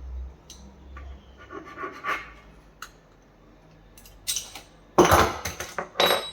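Small metal hardware being handled on a workbench: light clicks and scratching, then louder rattling scrapes about five seconds in.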